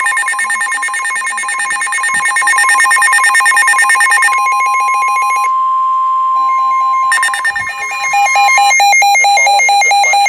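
NOAA weather radios sounding a flash flood alert: the steady 1050 Hz warning alarm tone mixed with the radios' own rapid electronic beeping. The steady tone stops about nine seconds in, and the two-tone beeping carries on, loud.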